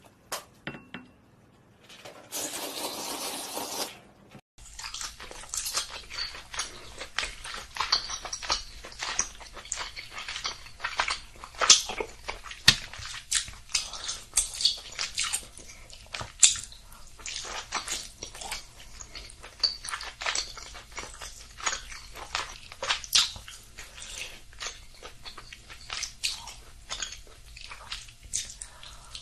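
Close-miked eating: crisp food being bitten and chewed, a dense, irregular run of crunches and crackles. A hissing noise lasts about two seconds before the crunching starts.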